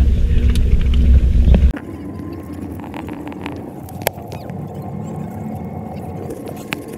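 Cable car gondola in motion: a loud low rumble cuts off abruptly about two seconds in. A quieter steady hum remains, with scattered sharp clicks.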